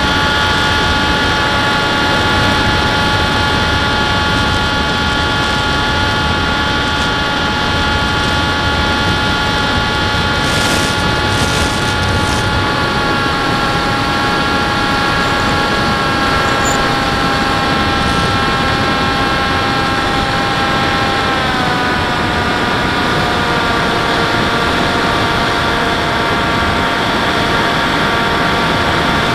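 Model airplane's motor and propeller heard from the onboard camera, a steady high whine with wind rushing over the microphone. About two-thirds of the way through, the pitch drops a step as the motor slows.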